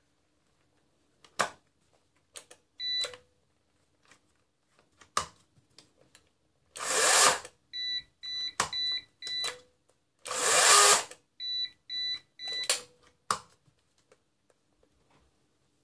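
Bosch AKE 30 Li 36 V cordless chainsaw's electric motor and chain run in two short bursts of under a second each, among handling clicks. Between the bursts come quick runs of three or four short high-pitched beeps.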